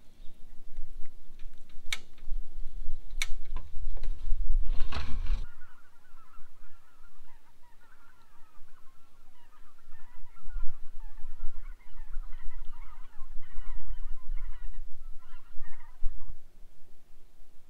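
A flock of geese honking, many overlapping calls for about ten seconds, starting around five seconds in. Before the honking, a couple of sharp clicks and a short rustling burst with a low rumble.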